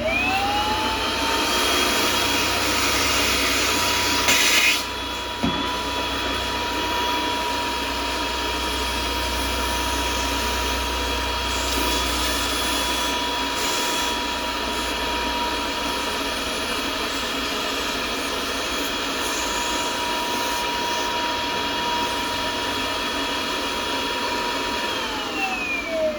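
HEPA vacuum motor switched on, spinning up in a second to a steady high whine over a rush of air. It runs evenly, with the airy hiss changing about five seconds in. Near the end it is switched off and winds down in falling pitch.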